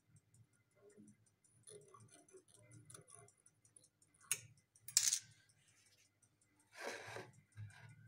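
A digital clamp meter being handled: a sharp click about four seconds in, then a short rustling burst, the loudest sound, and another rustle near seven seconds. Under it run a faint, rapid ticking and a low hum that comes and goes.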